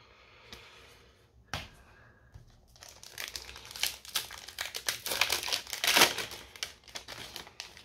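A trading-card booster pack wrapper crinkling in the hands and being torn open. The crackling builds from about three seconds in and is loudest near the end.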